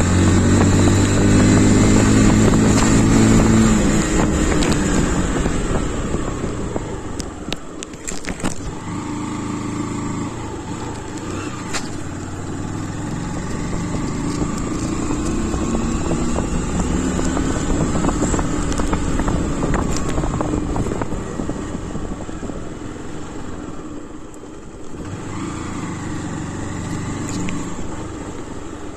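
Honda motorcycle engine running under the rider: loud and revving in the first few seconds, then falling in pitch as the throttle eases off and running at lower revs, dipping again briefly near the end, with wind rushing over the microphone.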